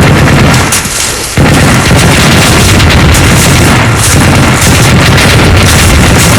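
Dubbed-in battle sound effects: a loud, continuous barrage of explosions and gunfire, dipping briefly about a second in before resuming at full force.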